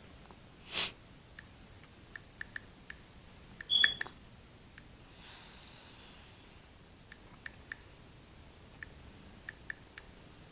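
Calculator keys being pressed, a string of soft irregular clicks, with a short high beep just before four seconds. A brief breathy sound, like a sniff, comes about a second in.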